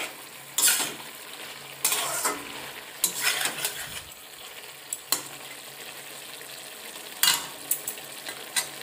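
Eggplant and pork stir-frying in a metal wok: a steady sizzle, with a metal spatula scraping against the pan a handful of times, about one to two seconds apart.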